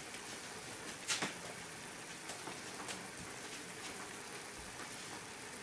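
Soy-and-sugar simmering broth bubbling gently in a saucepan of fish-paste balls, daikon and carrot: a steady soft crackle of small bubbles popping, with a couple of louder pops about a second in.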